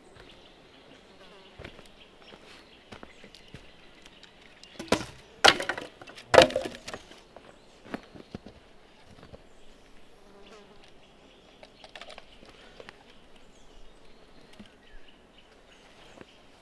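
Steady high buzzing of insects, with three loud knocks about five to six and a half seconds in and scattered faint clicks.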